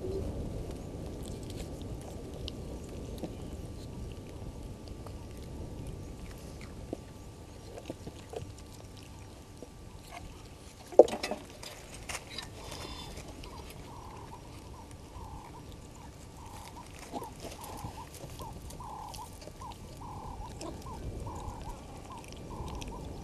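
A low steady rumble of outdoor ambience, with one sharp crack about eleven seconds in. An animal call of short repeated notes, about two a second, starts right after the crack and carries on to the end.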